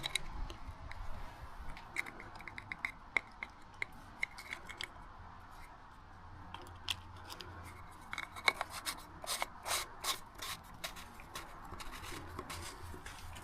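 Irregular small clicks, taps and light scraping of hand work on the motorcycle's brake parts and tools, bunching a couple of seconds in and again from about eight to eleven seconds.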